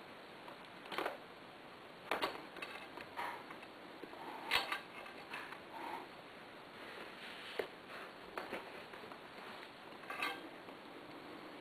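Knipex Cobra water-pump pliers and copper tube being handled: irregular metallic clicks and clinks, with a few sharper clanks spread through.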